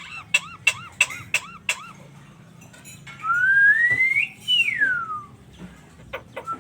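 Pet jalak starling calling: a quick run of about six short, arched notes, then a long whistle that rises and then falls, like a wolf whistle.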